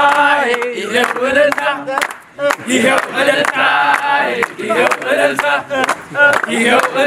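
A group of men singing and chanting together to hand-clapping, with a short break in the singing about two and a half seconds in.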